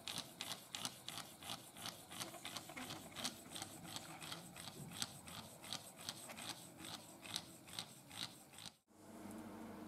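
Homemade PVC compressed-air engine running. Each stroke gives a short sharp sound, about three a second, over a light rubbing of the moving parts. It cuts off abruptly near the end.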